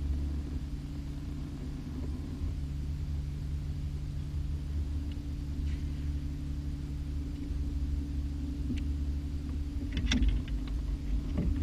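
Steady low hum of a small electric motor on a bass boat, with a few faint clicks near the end.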